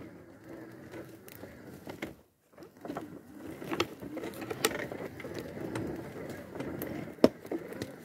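Magic Mobility Extreme X8 power wheelchair driving over rough forest ground: motor whine with the chassis rattling, and several sharp knocks as it rolls over roots and branches, the loudest about seven seconds in. The sound cuts out briefly about two seconds in.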